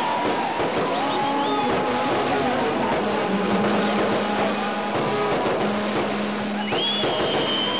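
A fireworks display, crackling and popping without a break, with several whistling tones that rise, hold and then fall away. A higher whistle starts near the end.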